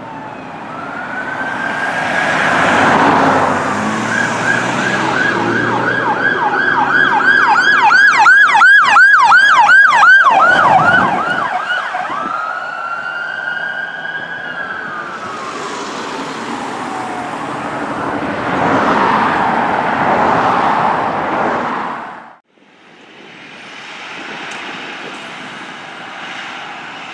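Electronic siren on a fire apparatus: a wail rising and falling, switched to a rapid yelp for about seven seconds, then winding down in a long falling wail. Loud rough blasts sound over it about two to four seconds in and again from about eighteen to twenty-two seconds; the sound cuts off abruptly after that and gives way to steady traffic noise without the siren.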